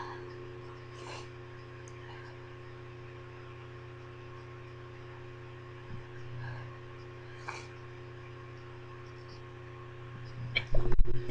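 A few faint sniffs over a steady electrical hum, then near the end a loud stifled sneeze that jolts the microphone into a low, shaky rumble.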